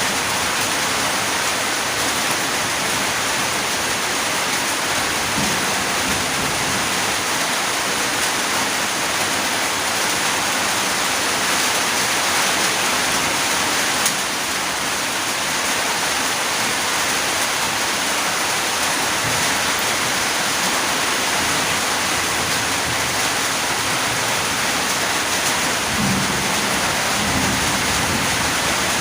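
Steady, dense rain pouring down, an even hiss of countless drops, with a faint low rumble near the end.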